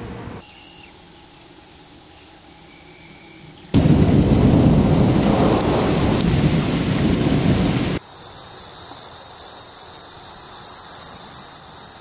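A steady, high-pitched insect chorus for about three seconds, then about four seconds of heavy rain with a low rumble, then another steady, high insect chorus.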